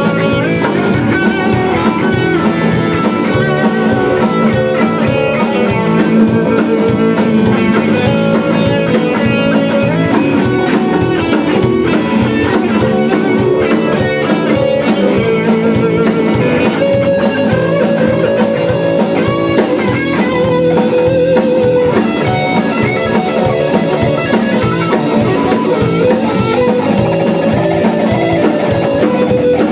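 A rock band playing an instrumental passage: electric guitars over a drum kit, played live in a small room.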